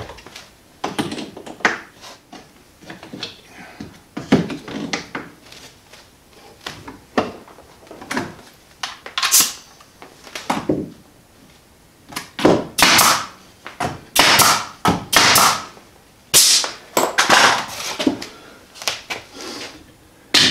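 Wooden mantel boards being handled and fitted against a wooden frame: scattered knocks and taps, then a busier run of short scraping and rubbing sounds in the second half, which are the loudest part.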